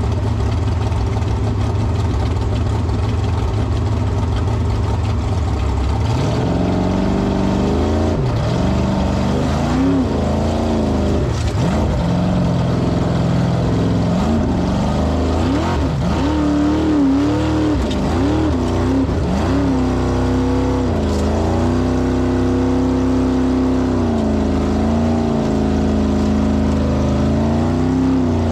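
Formula offroad car's engine running at a steady low speed, then about six seconds in revving up and down again and again, its pitch rising and falling with the throttle.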